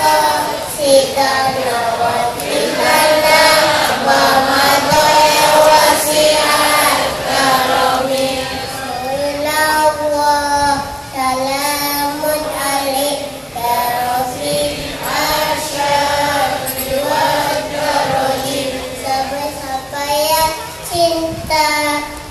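Young boy singing a devotional song in praise of the Prophet into a microphone, amplified through stage speakers, in long held, wavering notes.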